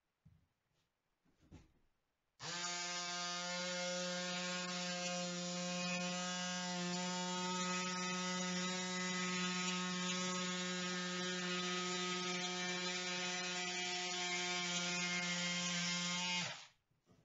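Cordless electric rotary cutter running with a steady, even-pitched motor hum as it slices through woven fiberglass cloth. It starts about two and a half seconds in and stops shortly before the end.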